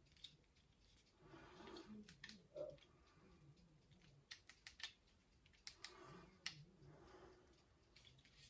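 Faint, scattered plastic clicks of an Xbox media remote's buttons being pressed with its front cover off.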